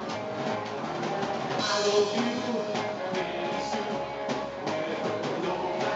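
Live rockabilly band playing an instrumental passage: hollow-body electric guitar, slapped upright double bass and drum kit driving a steady beat, with a louder crash about two seconds in.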